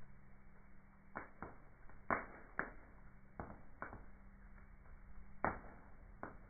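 Wood fire burning in a fireplace, crackling with a scattering of sharp pops and snaps from the logs. The loudest pops come about two seconds in and again near the end, over a faint steady hum.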